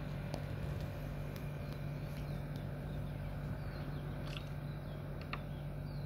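Steady low background hum, with a few isolated faint taps and some faint short high chirps between about four and five and a half seconds in.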